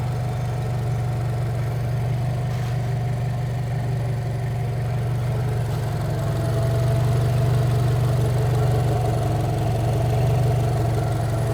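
Turbocharged Subaru BRZ's 2.4-litre flat-four engine idling steadily, getting a little louder about halfway through.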